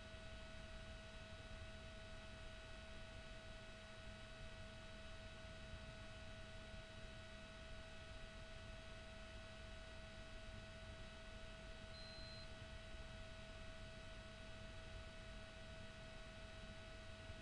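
Near silence: a faint steady tone with weaker higher tones over a low hiss, unchanging throughout.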